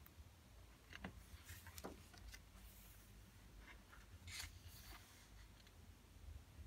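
Faint rustles and swishes of smooth, thick paper pages being turned in a hardcover coloring book, with the clearest about one second in and about four seconds in.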